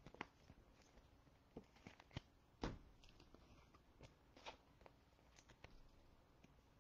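Near silence, broken by faint scattered clicks and light rustles of trading cards and packs being handled. The strongest click comes a little over two and a half seconds in.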